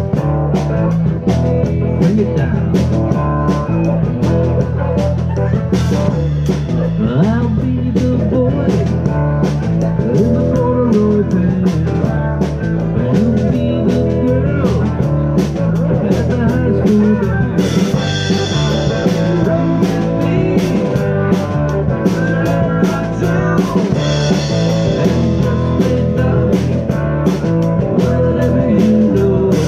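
Live rock trio of electric guitar, electric bass and drum kit playing, with a lead guitar line of bent notes over a steady bass and drumbeat. Cymbals wash in twice during the passage and again near the end.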